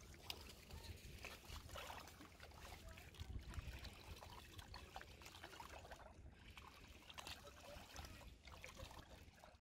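Faint splashing and trickling of shallow seawater being waded through, with irregular small splashes and a low rumble underneath.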